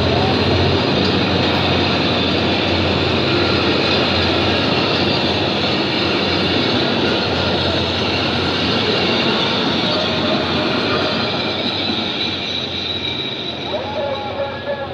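Passenger coaches of a train hauled by a Henschel diesel locomotive passing close at speed: a steady clatter and rumble of wheels on rail that fades as the last coach goes by near the end, with a wavering wheel squeal as it recedes.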